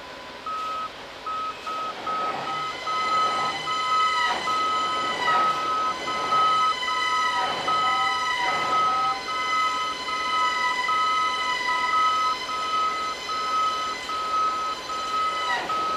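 Mobile crane's warning beeper sounding a rapid, even series of single-pitch beeps, about three a second, as the crane drives up onto a low-loader trailer. Under it the crane's drivetrain runs with a steady high whine whose pitch dips briefly several times as the engine is worked.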